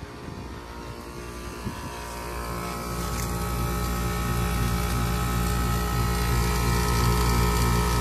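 Bard wall-mounted heat pump running with a steady mechanical hum. It grows louder about two and a half seconds in and then holds steady.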